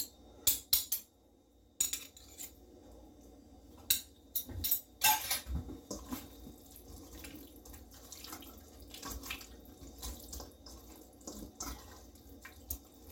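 A metal spoon clinks against a stainless steel bowl several times in the first couple of seconds, then there is soft wet squelching as hands work chicken drumsticks through a thick yogurt-and-oil marinade, with occasional light taps on the bowl.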